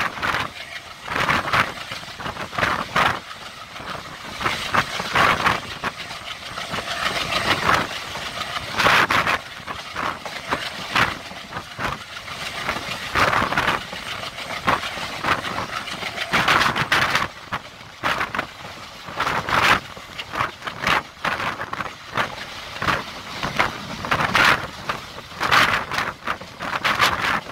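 Indian Railways passenger coach running at speed, heard from its open doorway: a continuous rush of wheel and track noise that keeps swelling and fading in loudness.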